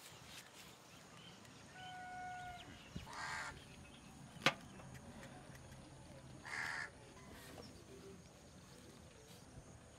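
A crow cawing twice, a few seconds apart, over a quiet outdoor background. Before the first caw comes a short steady whistle-like note, and between the caws a single sharp click, the loudest sound.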